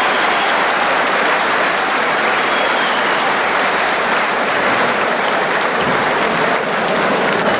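Boxing crowd applauding and cheering, a steady dense clatter of clapping and voices as the round ends and the fighters go to their corners.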